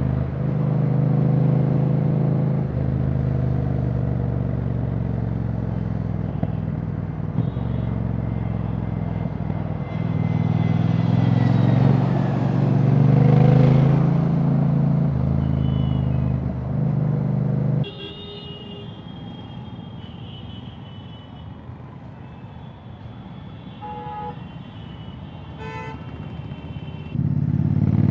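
Royal Enfield Bear 650's parallel-twin engine running with no exhaust silencer fitted, loud and open, its pitch rising and falling as the rider works the throttle. About two-thirds in the sound drops suddenly much quieter for several seconds, with vehicle horns honking, before the engine comes back loud and revving up near the end.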